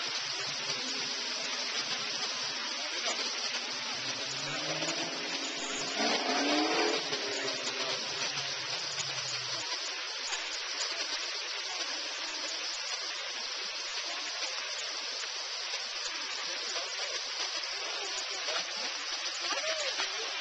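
Fountain water spraying from jets and splashing into the basin, a steady hiss. A brief louder pitched sound stands out about six seconds in.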